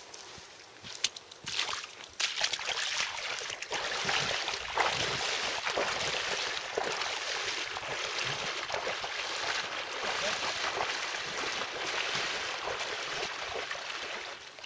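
Legs in waders sloshing and splashing through knee-deep lake water as a man wades out steadily, with a few sharp clicks before the splashing starts.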